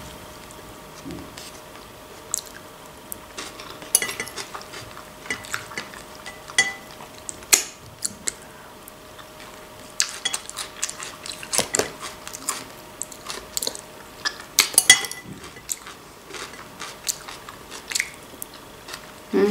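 Eating at close range: a fork clicking and scraping in a bowl of cucumber and tomato salad, with chewing between the clicks. A faint steady hum sits underneath.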